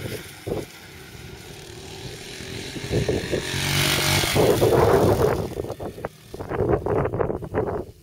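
Honda CRF230 four-stroke single-cylinder dirt bike riding past close by, its engine building to its loudest about four seconds in, then turning choppy and uneven as it moves off.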